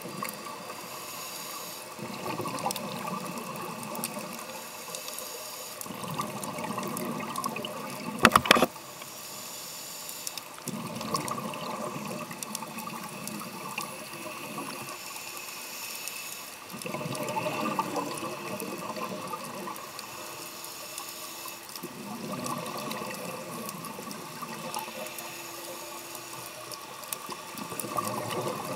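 Scuba diver breathing through a regulator, heard underwater: bursts of exhaled bubbles about every five to six seconds, with quieter stretches between. One sharp click about eight seconds in is the loudest sound.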